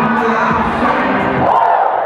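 Audience cheering and yelling loudly, with one long rising-then-falling shout near the end.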